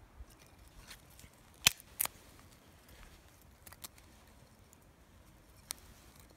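Small fire of feather-stick shavings and kindling burning, with scattered sharp crackles and pops: two loud ones close together just under two seconds in, and a few fainter ones later.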